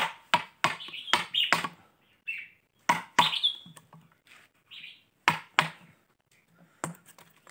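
A steel chisel driven with a mallet into the soft pith of a fishtail palm log, hollowing it out: about ten sharp knocks, many in quick pairs. A red-whiskered bulbul chirps a few times between the strikes.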